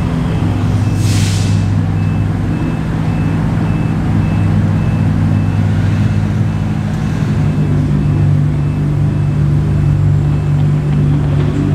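A vehicle engine idling steadily, its pitch stepping up about seven and a half seconds in, with a short hiss of air about a second in.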